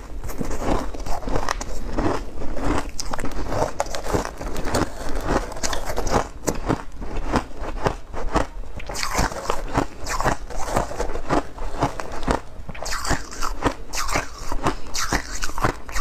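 Refrozen freezer frost ice being chewed close to the microphone: a continuous run of sharp, crisp crunches and crackles.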